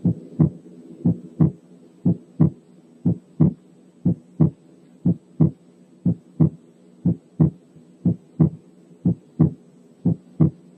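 Recorded heart sounds of an auscultation example: a steady run of paired beats, about one heartbeat a second, each first sound followed by a second sound that is slightly broad. The broadening comes from the second heart sound being split into two components very close together, a narrowly split S2.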